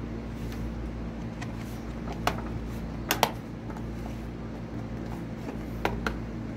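A few short, sharp clicks and taps, some in quick pairs, from hands and tools working parts loose on a laptop during disassembly, over a steady low hum.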